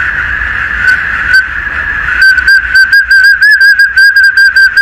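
Plastic toy whistle held in a dog's mouth, sounding one steady high note and then, from about two seconds in, a quick run of short chirping toots, about six a second.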